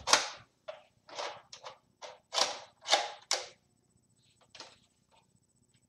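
Plastic clatter and scraping from a toy Nerf blaster being handled, in a run of short noisy bursts that fade out after about three and a half seconds.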